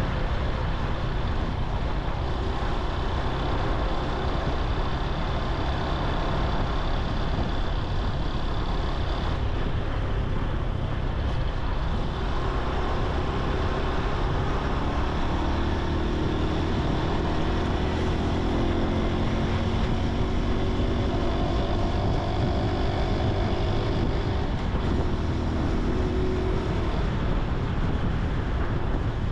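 Honda Super Cub C125's air-cooled single-cylinder four-stroke engine and exhaust running while the scooter is ridden, over a steady rumble of wind and road noise. In the second half the engine note climbs several times as it picks up speed.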